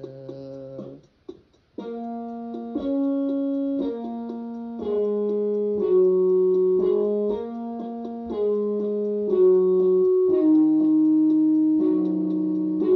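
Electric keyboard music playing held chords that change about once a second. It breaks off briefly about a second in, then starts again.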